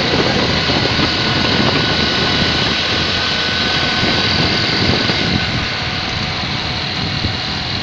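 Motorcycle running at speed along a road, its engine mixed with steady wind rushing over the microphone.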